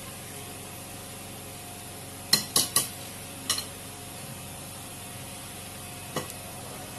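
Wire whisk stirring dry flour mix in a bowl, with sharp knocks of the whisk against the bowl: three quick ones about two seconds in, another half a second later, and a lighter one near the end, over a steady background hiss.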